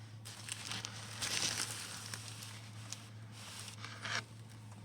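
Crinkling and rustling as a fuel hose and small plastic fittings are handled, with a few light clicks, over a steady low hum.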